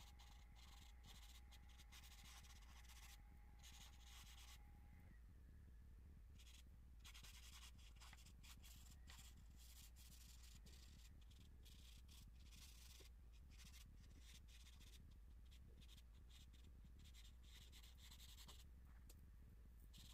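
Charcoal scratching and rubbing across drawing paper in quick, irregular strokes, faint, over a low steady hum.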